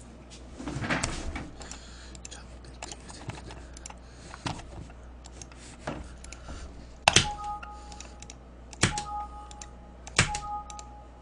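Computer keyboard typing and mouse clicks, scattered short taps. About 7, 9 and 10 seconds in come three louder sharp clicks, each followed by a short two-note electronic beep.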